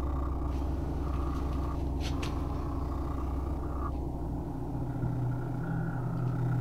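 Steady low hum with no speech, changing a little in tone about halfway through, and a brief faint click about two seconds in.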